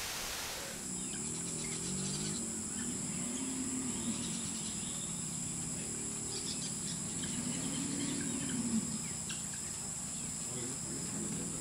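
Steady high-pitched buzzing of insects, with scattered bird chirps and low, drawn-out wavering calls that come and go.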